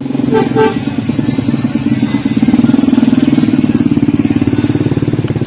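A motor vehicle engine running close by with a fast, even pulse. It grows louder about two seconds in, then holds steady. Two short pitched notes sound near the start.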